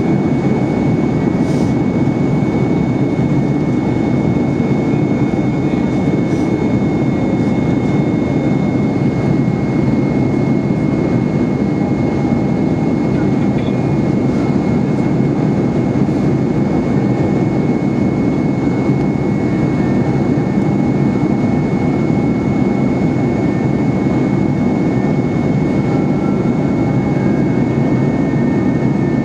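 Steady cabin roar of an Airbus A320-232 in flight, heard from a window seat beside the engine: the IAE V2500 turbofan and the airflow make an even, unbroken rushing noise, with a thin steady high tone running over it.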